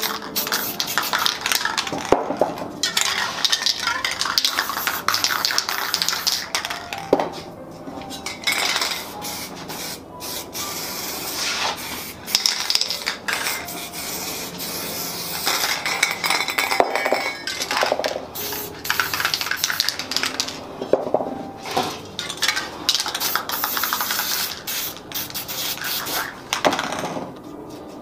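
Aerosol spray paint cans hissing in short, repeated bursts, with frequent clinks and knocks of the metal cans being picked up and set down.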